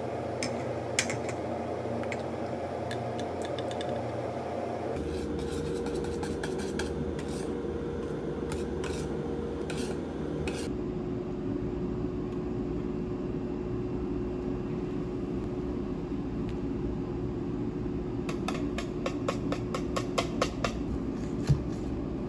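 Wire whisk beating thin cheesecake batter in a stainless steel bowl, its wires clicking and scraping against the metal. The clicks come scattered at first and turn into a fast run of clicks near the end, over a steady background hum.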